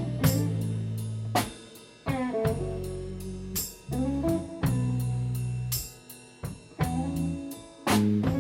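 Blues band music: guitar and drum kit playing held chords that are struck about every two seconds and left to ring out, with drum and cymbal hits between them.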